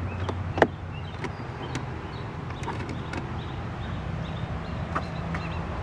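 Light clicks and taps of a hand on a car's rear door trim and handle, the loudest a single sharp click about half a second in. They sit over a steady low background hum.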